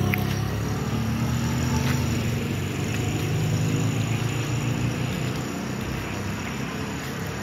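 Street traffic at night: motorcycle and other vehicle engines running past on the road, loudest at the start and easing off slightly, over a steady background of traffic noise.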